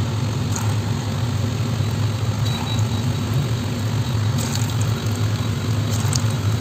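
Chhana kofta balls sizzling as they fry in hot oil in an aluminium kadai, over a steady low hum, with a few faint clicks.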